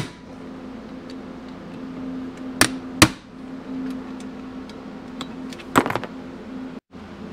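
A few sharp knocks of a hammer and tools on the aluminium engine crankcase and workbench while the case screws are being seated: one at the start, two close together about three seconds in, and a double knock near the end. A steady low hum runs underneath.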